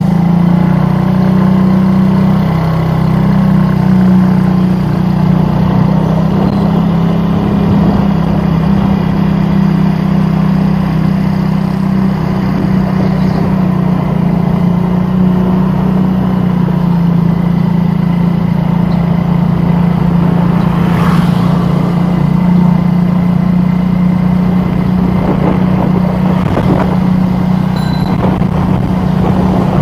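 A motor vehicle's engine running at a steady speed, a loud, even low drone, with traffic noise around it.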